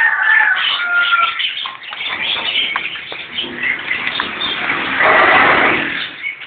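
Birds chirping and cooing in the background, with a louder stretch of hissing noise about five seconds in.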